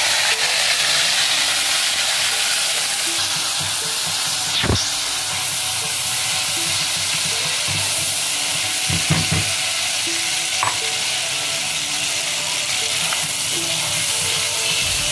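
Ginger-garlic paste sizzling steadily in hot oil with cumin seeds as it is stirred with a silicone spatula, with a few short knocks.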